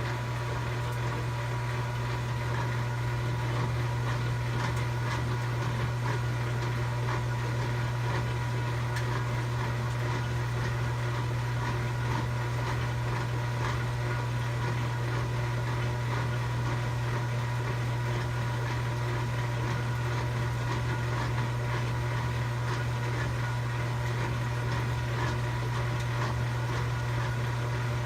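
Kenmore 90 Series washing machine making a steady whirring noise during agitation: a loud, even low hum with a fainter steady higher tone above it.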